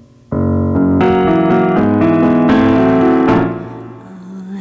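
Electric keyboard playing a piano-sound intro: a chord struck, then a run of sustained chords that fade away about three and a half seconds in, leaving a low note ringing.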